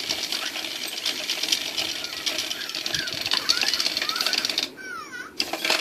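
Little Live Pets toy mouse's small electric motor buzzing with rapid clicking, with a few short, high chirping squeaks over it. The buzzing stops near the end, leaving one last short squeak.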